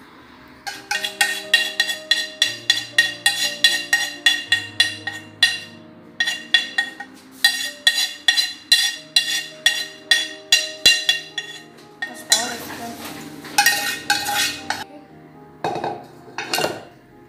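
A spoon knocking and scraping against a metal mixing bowl to get the batter out: rapid ringing clanks, about three a second, with two short pauses, then a few seconds of scraping near the end. Background music plays underneath.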